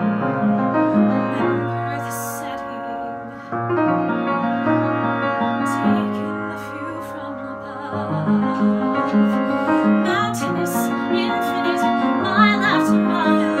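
A woman singing a musical theatre ballad over piano accompaniment, her voice wavering with vibrato on held notes.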